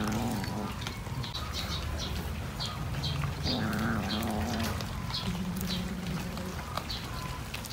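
Cat eating raw fish: a steady run of short, wet chewing clicks, with three low, drawn-out calls, one near the start, one about halfway and one in the second half, typical of a cat growling over its food.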